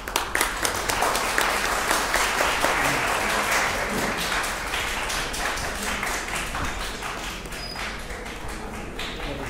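Audience applauding: dense clapping that starts at once, is loudest over the first few seconds and then slowly dies away.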